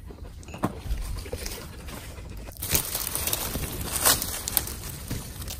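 Rustling and crunching in dry forest leaf litter, with a few sharp crunches, the loudest about four seconds in.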